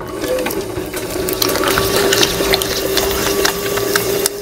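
Electric potter's wheel running, its motor giving a steady whine from the moment it starts, with many small clicks and ticks over it as a ball of clay is centered by hand on the spinning wheel head.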